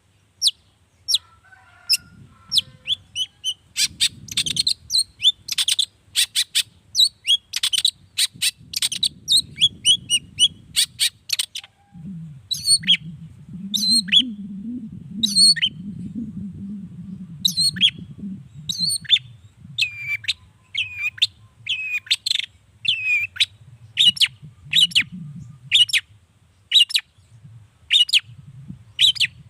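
Long-tailed shrike (cendet) singing a fast series of short, sharp, high chattering notes, quickest for a few seconds near the start, then with spaced, down-slurred notes. A low rumbling noise runs underneath.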